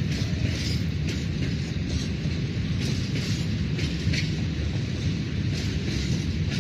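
Freight train of open-top wagons rolling past at a distance: a steady low rumble with irregular short clatters from the wheels.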